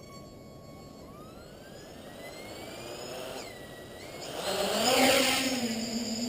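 Electric motors of a small quadcopter spooling up, several thin whines rising in pitch together, swelling to a louder rushing sound about five seconds in before settling into a steadier hum.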